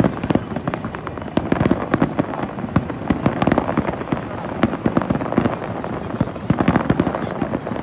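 Aerial fireworks display: many shells and crackling stars bursting in rapid succession, a dense, unbroken run of bangs and pops.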